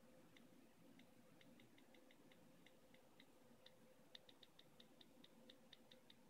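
Faint, irregular run of short ticks, several a second, from an iPad Air 2's on-screen keyboard key-click sound as keys are typed. The ticks come faster and a little louder in the second half.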